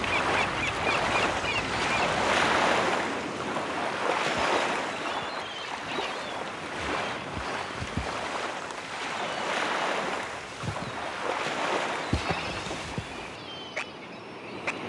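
Surf breaking and washing up a sandy beach, the noise swelling and fading with each wave, with a few low thumps of wind on the microphone. Near the end it cuts to a quieter sound with a few light clicks.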